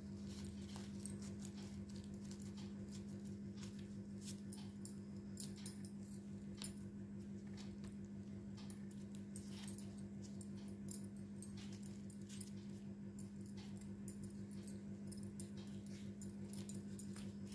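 Faint rustling and small clicks of corn husk petals and thread being handled and wound around a husk rose's base, over a steady low hum.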